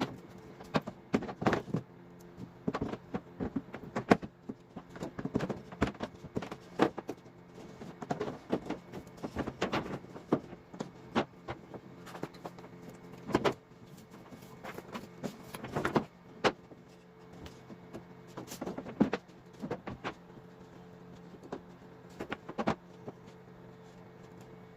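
Wooden drift-boat floorboards being handled and laid in place: irregular knocks and clatters of boards against each other and the hull, over a steady low hum.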